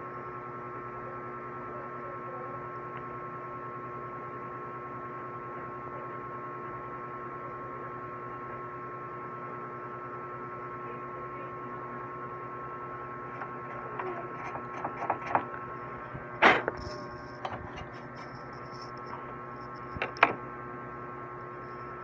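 Steady electrical hum with several fixed tones. From about two-thirds of the way in come a few light clicks and knocks of handling, the sharpest about three-quarters of the way through and another shortly after.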